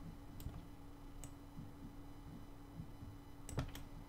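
Faint clicks of a computer mouse, a couple of single ones and then a louder pair near the end, over a steady low electrical hum.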